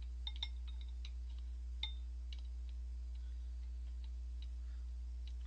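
Faint, scattered light clicks of wooden chopsticks tapping against ceramic bowls while noodles are picked up, over a steady low electrical hum.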